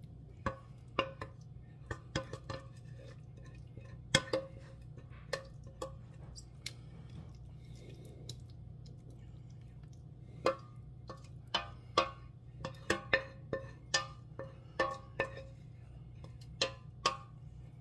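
A wooden spoon knocking and scraping against a stainless steel pot as thick filling is scraped out of it into a pie crust: irregular sharp knocks, sparse at first and then coming quickly from about ten seconds in, over a low steady hum.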